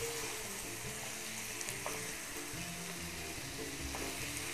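Minced meat and onion sizzling steadily in a frying pan over a gas flame, with a wooden spatula stirring and scraping against the pan.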